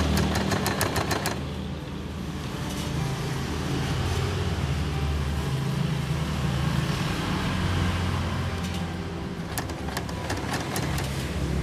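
Portable electric sewing machine stitching, a rapid run of needle clicks for about the first second, then a steady low hum, then another run of stitching clicks near the end.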